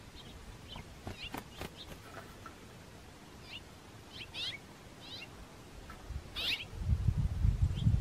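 Small songbirds chirping: scattered short, high calls, some in quick runs of downward-sliding notes. About six seconds in, a low rumbling noise comes up and becomes the loudest sound.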